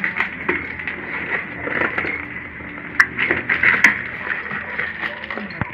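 Packaging and small items being handled: irregular rustling and light knocks, with two sharp clicks about three seconds in and again just before four seconds.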